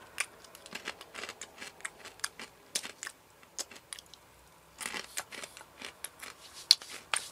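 Close-miked chewing of crunchy fried snacks, fava beans and cracker nuts, as a run of sharp irregular crunches with a brief lull near the middle.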